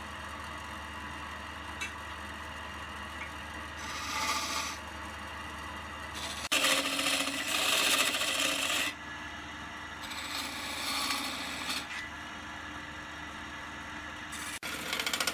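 Wood lathe running with a steady low hum, while a turning tool scrapes the spinning wood in several bursts. The longest and loudest burst comes about halfway through, and another begins near the end.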